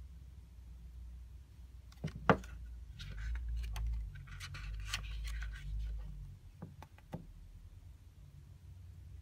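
Glossy pages of a small softcover artbook being turned by hand. A sharp tap comes about two seconds in, then about three seconds of paper rustling, and two light clicks near the end.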